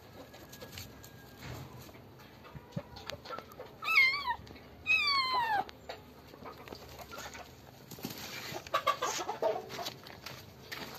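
Black-and-white kitten meowing twice while held down by a hand: two falling, wavering distress cries about four and five seconds in, the second longer. A rougher, noisier burst of sound follows about eight to nine seconds in.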